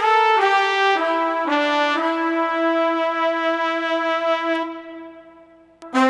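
Yamaha Genos arranger keyboard playing a solo brass melody: a few short notes, then one long held note that fades away about five seconds in, and the next phrase begins at the very end.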